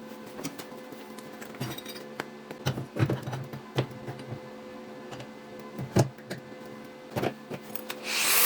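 Steel workshop parts clinking and knocking as they are handled and set down, with sharp metallic taps a few times a second over a faint steady hum. A loud steady noise starts just before the end.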